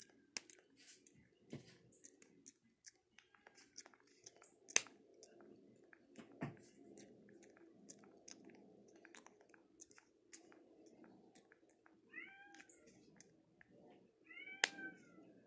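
Close-up crackling, clicking and rustling of a Java macaque's fingers parting and picking through a person's hair while grooming. A few short high calls with a rise-and-fall pitch come near the end.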